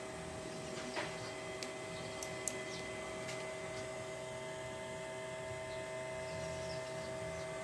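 Susan-735MP inverter running, giving a steady electrical hum made of several fixed tones. A few light clicks come in the first few seconds.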